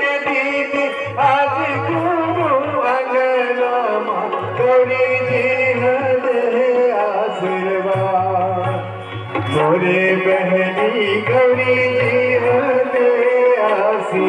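Music: a melodic line that bends in pitch, over a steady low pattern that stops and starts.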